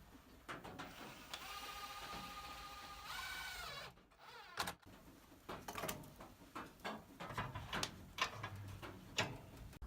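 A small motor whirs steadily for about two seconds, then steps up in pitch and stops. Scattered light clicks and knocks of handling follow.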